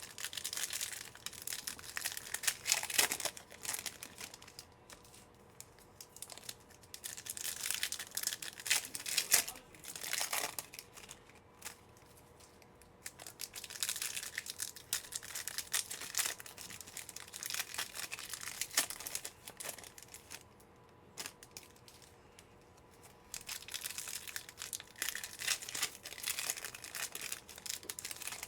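Trading card pack wrappers being torn open and crinkled by hand, in four stretches of a few seconds each with short pauses between.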